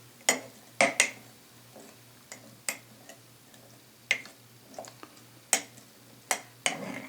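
Irregular light clicks and taps, about nine in all, of a utensil against a glass mason jar as hot pickled red onions are pushed down under the brine. A faint steady hum runs underneath.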